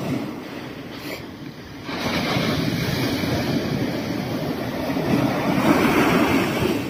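Surf breaking on a sand beach on a choppy sea: a wash of noise that swells about two seconds in and is loudest near the end as another wave breaks.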